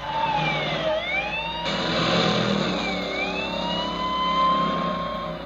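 Police car siren wailing, its pitch sweeping slowly down and up about every two seconds, over the car's engine running.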